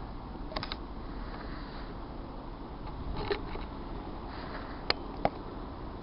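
Handheld camcorder handling noise: a few light clicks and knocks as the camera is moved and zoomed, two sharp clicks close together about five seconds in, over a steady low background hiss and rumble.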